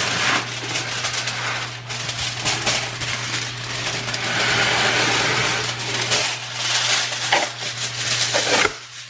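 Aluminium foil being pulled from the roll, then crinkled and spread out over a metal baking sheet: a long run of loud crackling and rustling.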